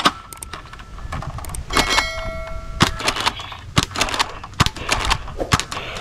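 Plastic toy guns being handled, a busy run of clicks, knocks and clatter, with a short ringing ding about two seconds in.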